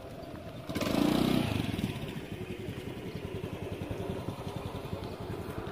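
A small engine comes on suddenly under a second in, loudest for about a second, then eases to a steady run.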